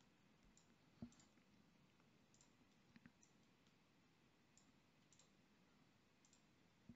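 Near silence with a few faint computer mouse clicks, the clearest about a second in, two close together near the middle and one just before the end.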